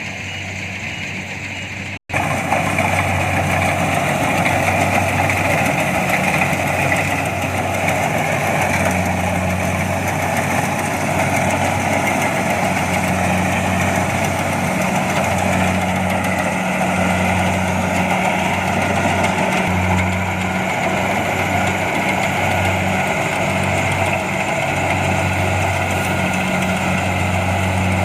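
Kubota DC-70 Plus rice combine harvester running steadily, its diesel engine a continuous drone. The sound drops out for an instant about two seconds in, then carries on a little louder.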